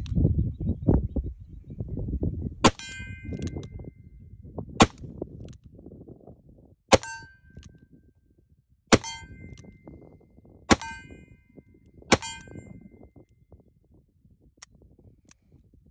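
Six shots from a Smith & Wesson Model 10 .38 Special revolver, one every two seconds or so, emptying the six-round cylinder; each shot is followed by a short metallic ring from a steel target being hit. Two faint clicks come near the end.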